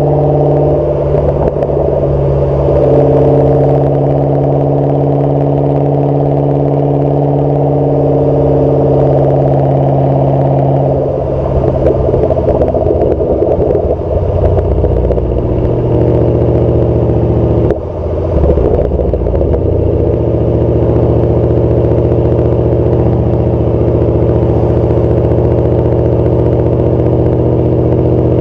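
Exhaust of a 2008 Ford Mustang GT's 4.6-litre V8, running through GT500KR/FR500S mufflers while driving, with a steady drone at cruise. Its pitch shifts several times as the car speeds up and eases off, and about eighteen seconds in it dips briefly and picks up again.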